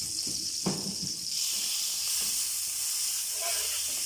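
Butter sizzling in a hot pan, a steady hiss that gets louder about a second in. A single light knock, like a utensil against the pan, comes just before.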